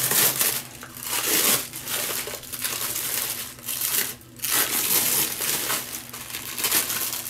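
Crinkling and rustling in irregular bursts with short pauses, as a toilet wax ring is handled and worked onto the bottom of a toilet bowl.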